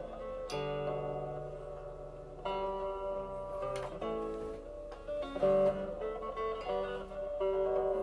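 Acoustic guitar playing an instrumental passage of picked chords, each struck and left to ring, with a new chord about every second and a half.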